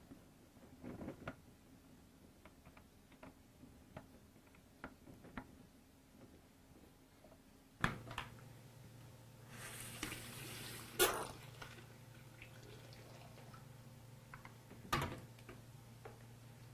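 Small plastic clicks and taps as the dispenser valve is handled, then a knock about eight seconds in followed by a steady low hum. Water then hisses through the valve for about two seconds, and another knock comes near the end.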